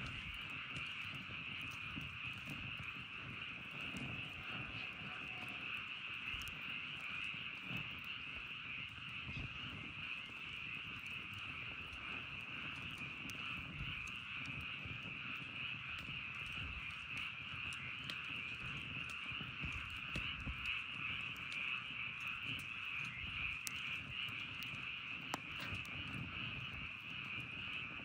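Campfire burning with scattered small crackles and a low rumble. Over it runs a loud, steady, high chorus of calling animals that never lets up.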